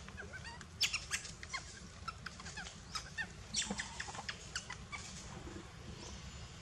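A quick run of short, high animal squeaks, chirps and clicks, thick for the first four and a half seconds or so and then thinning out, over a low steady rumble.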